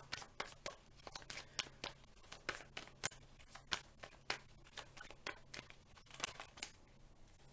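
Tarot cards being shuffled and handled in the hands: a string of irregular light clicks and flicks of card stock, a few a second.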